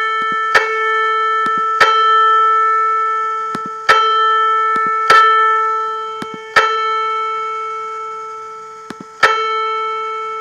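Sampled piano A4 played as a two-string unison in an ear-training app, struck afresh six times and ringing down between strikes, with light mouse clicks just before some strikes. One string is being raised in small steps between plays to bring the unison toward a clean, beatless 0 cents.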